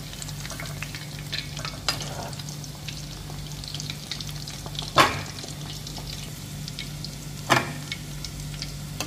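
Mutton goli kababs deep-frying in hot oil in a kadai: a steady sizzle with small crackling pops. Two sharp knocks stand out, one a little past halfway and one near the end.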